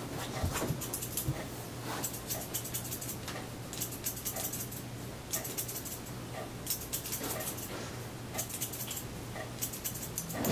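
Hair-cutting scissors snipping through wet hair in quick runs of crisp clicks, several runs in a row with short pauses between them.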